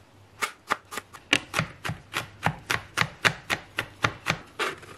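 Chef's knife chopping garlic cloves on a plastic cutting board: a steady run of sharp knocks, about four a second, starting about half a second in and stopping near the end.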